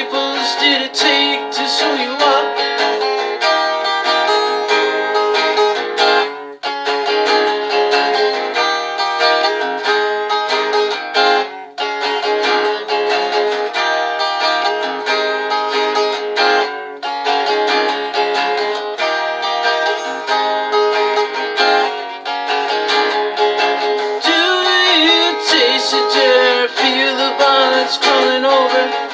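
Guitar playing an instrumental passage of a song, strummed and plucked chords ringing on steadily.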